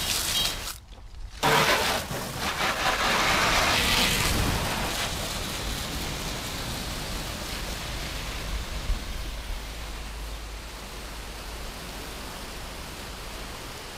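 Garden hose spray hitting a car's wheel and body panels: a steady hiss of water. It breaks off briefly about a second in, comes back at its loudest, then slowly grows softer.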